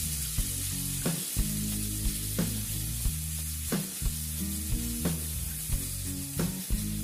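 Thin slices of beef sizzling in hot oil in a nonstick frying pan while a wooden spoon stirs and spreads them, with irregular knocks and scrapes of the spoon against the pan.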